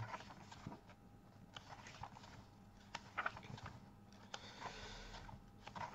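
Pages of a paperback book being turned and handled: quiet paper rustles with a few short soft ticks.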